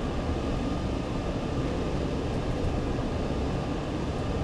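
Steady cabin noise of a moving vehicle: road and engine rumble heard from inside.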